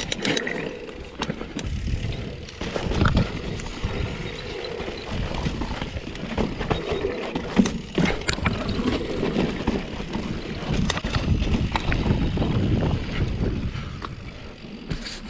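Mountain bike riding downhill over dirt and rock: a steady rush of tyre noise, with frequent sharp knocks and rattles as the bike bounces over rocks and bumps.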